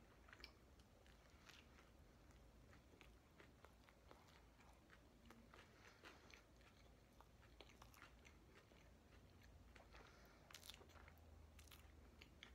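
Faint close-up sounds of a person biting into and chewing a McDonald's burger: soft irregular mouth clicks and smacks.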